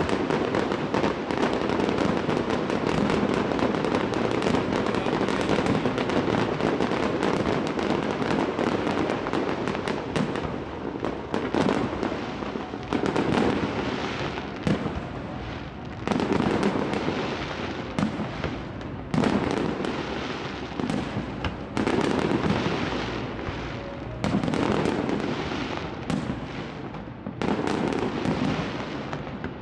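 Aerial fireworks display: a dense, continuous stretch of bangs and crackle for the first third, then separate loud shell bursts every one to three seconds, each trailing off in crackle.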